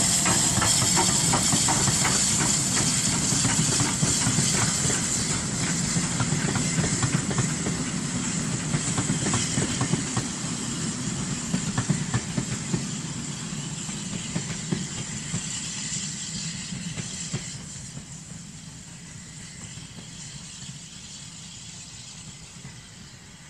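Southern Railway S15 steam locomotive No. 847 passing with a steady hiss of steam, followed by its coaches clicking over the rail joints. The sound fades steadily as the train draws away.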